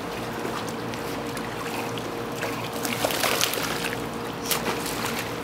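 Pool water splashing and sloshing as dogs and people swim, with a cluster of louder splashes about three seconds in and another short splash near the end, over a faint steady hum.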